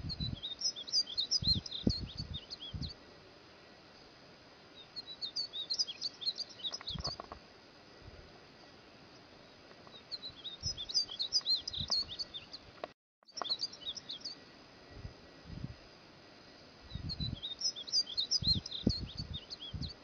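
Tigrillo degollado finch singing: bouts of rapid, high chirping notes, each two to three seconds long, repeating about every five seconds. Faint low thumps sound under the song, and the sound cuts out for a moment just past the middle.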